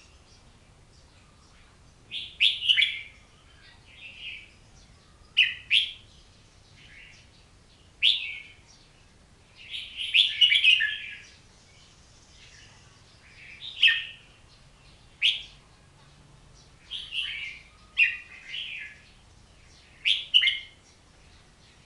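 Pet songbird singing short, bright chirping phrases, one every second or two, with pauses between them.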